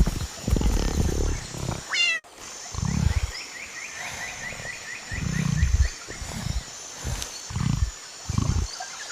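Several short bouts of low, rumbling tiger growls, with a kitten's rising mew about two seconds in and a run of quick, high chirps in the middle.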